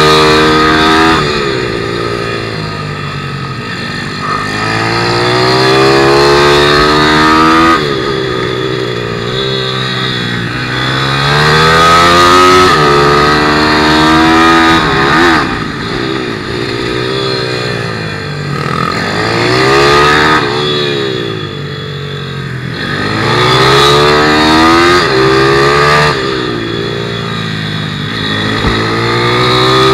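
A 160cc pit bike engine heard from on board the bike at racing speed. Its revs climb hard on each short straight, then drop back as the rider shuts off and brakes for the next corner, several times over.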